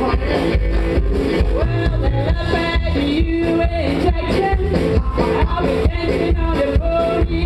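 Live country rock band playing with a steady drum beat: upright double bass, drum kit and hollow-body electric guitar.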